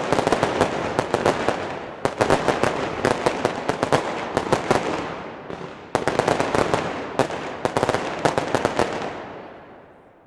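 Consumer firework batteries firing in rapid salvos: shots launching and dense crackling star bursts. A fresh salvo starts about two and about six seconds in, and the firing dies away over the last second or so.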